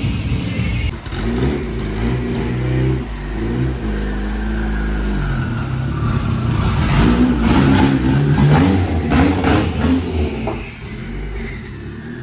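Turbocharged Honda Civic engine revving and accelerating, its pitch climbing and dropping several times. It is loudest about two-thirds of the way through, then settles back.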